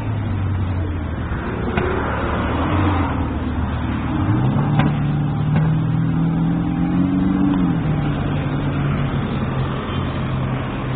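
A motor vehicle's engine running, its low hum stepping up in pitch about four seconds in, climbing slowly, then dropping back about eight seconds in, as with a vehicle accelerating and easing off.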